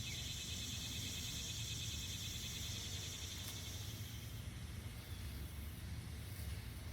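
Insects calling in a steady, pulsing chorus that fades out about four seconds in, over a low wind rumble on the microphone.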